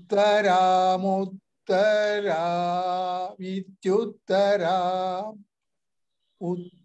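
A man's voice chanting Vedic Sanskrit verse in a steady recitative, holding each syllable on a few nearly level pitches. It comes in four phrases with short breaks, then stops for about a second near the end.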